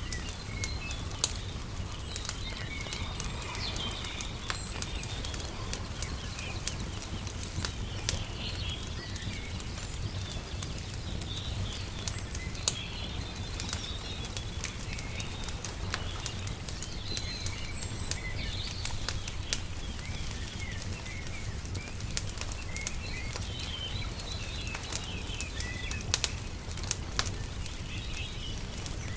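Wood fire crackling, with sharp pops scattered throughout, under birdsong of short chirps and a steady low rumble.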